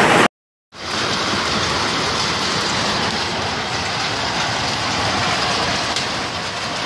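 Hail falling steadily onto a lawn and the ground around it: a dense, even hiss of countless small impacts that resumes after a brief drop to silence near the start.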